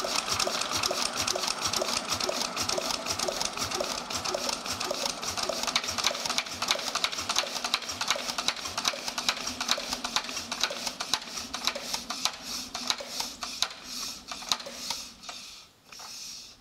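Fairbanks-Morse Model ZC 118 natural-gas oil-field engine running down to a stop with its fuel shut off. A fast, even clatter of mechanical clicks slows and thins out over the last few seconds, then dies away as the flywheel coasts to a halt.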